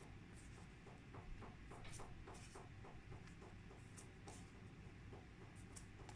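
Near silence, with faint irregular ticking of rain on a conservatory roof, most frequent between about one and three seconds in.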